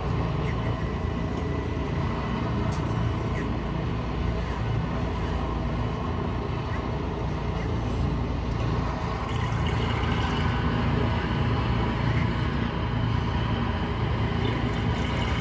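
Air ambulance helicopter sitting on the ground with its engines running and rotors turning: a steady, loud drone that holds level throughout.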